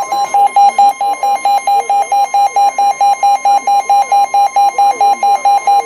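Weather radio alert: a rapid electronic beeping, about five beeps a second, over a steady high tone, the NOAA Weather Radio 1050 Hz warning alarm that sets off a receiver's alarm ahead of a new warning.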